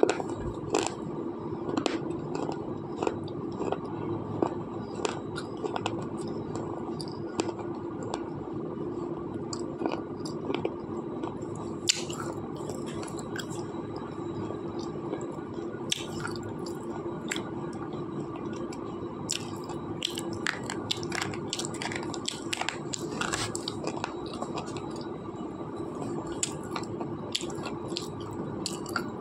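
A hard slate pencil being bitten and chewed right at the mouth: irregular sharp crunching snaps and gritty chewing clicks, with a few louder snaps around the middle.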